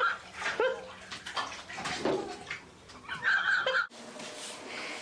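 Water splashing and sloshing in a filled bathtub, with a loud high-pitched squeal about three seconds in. The sound cuts off suddenly near the end, leaving a faint steady hiss.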